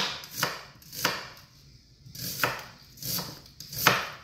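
Kitchen knife chopping a red onion on a wooden cutting board: about seven sharp chops, roughly two a second, with a pause of about a second in the middle.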